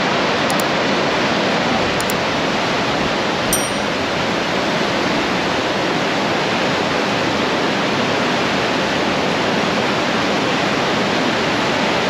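Steady rush of churning white water in a cruise ship's wake.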